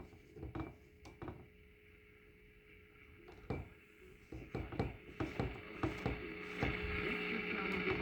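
1946 Philco 45-350 tube radio's speaker giving off irregular crackling and hiss with no station coming through, over a faint steady whine; the hiss grows louder near the end.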